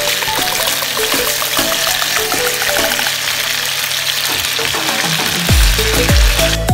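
Food frying in a hot pan, a steady sizzle that cuts off abruptly near the end. Background music runs throughout, and its heavy bass beat comes in about five and a half seconds in.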